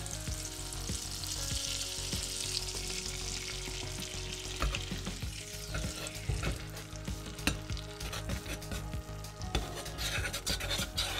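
Butter sizzling in a stainless steel saucepan as almond butter is added, then a spoon stirring the mixture, with frequent quick clicks and scrapes against the pan from about four seconds in.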